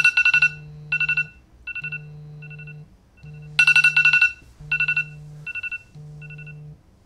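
Smartphone alarm ringing: short clusters of rapid high beeps about once a second, loudest at the start and again about three and a half seconds in, with a low buzz filling the gaps between them.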